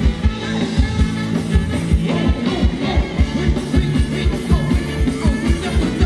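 Live band playing upbeat Thai ramwong dance music: a steady, quick drum beat over bass, with a singing voice.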